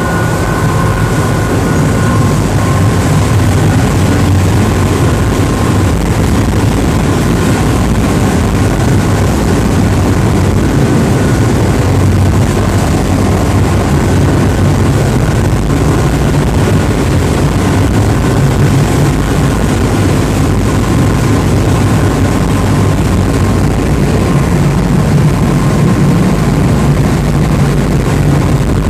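A crew boat's marine diesel engines running under way, heard in the engine room as a loud, steady, deep drone with a faint steady whine above it.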